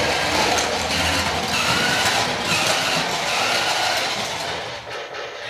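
Remote-control VTech Switch & Go Dinos toy car driving across a hardwood floor in its dinosaur form: its small electric drive motor and gears whine continuously, the pitch sliding up and down as it moves.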